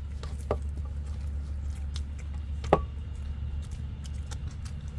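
Eating by hand: fingers squishing rice and curry and working over steel plates, with a few light clicks, the sharpest about two and three-quarter seconds in, over a steady low hum.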